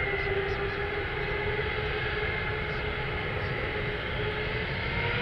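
Boeing 787 airliner's jet engines running on the runway: a steady rumble with a whine in several tones. Right at the end the whine starts to rise as the engines spool up.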